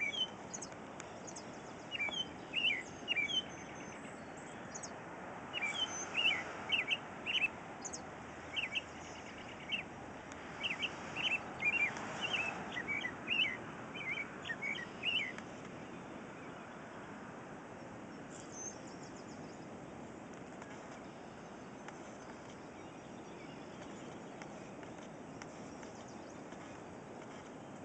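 American robin chirping: quick clusters of sharp, high chirps for about the first fifteen seconds, then it stops and only a faint, steady background hiss remains.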